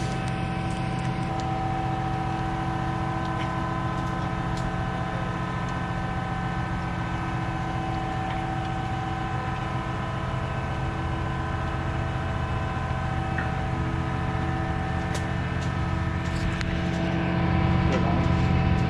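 Diesel engine of a concrete pump truck running steadily, with a faint tick or knock here and there. It gets a little louder near the end.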